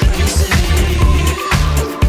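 Background dance music with a steady beat, about two beats a second.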